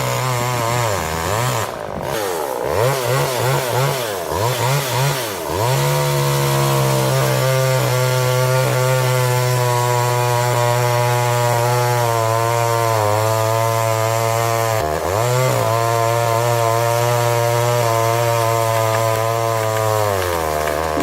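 Gas chainsaw revved up and down several times, then held at full throttle for a long steady cut through a log, with a brief dip about fifteen seconds in, and let off near the end.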